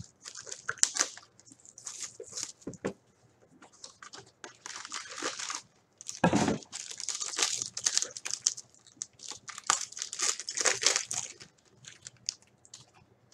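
Plastic wrapping on a sealed trading-card box and pack being torn open and crinkled by hand, in irregular crackling bursts, with a dull bump about six seconds in.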